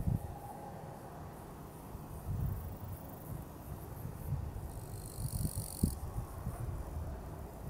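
Wind buffeting the microphone in uneven gusts, with an insect trilling briefly on one high steady note about five seconds in.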